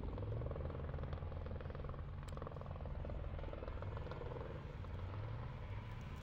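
Off-road race vehicle's engine running hard at speed as it races along the dirt course, a steady pulsing drone.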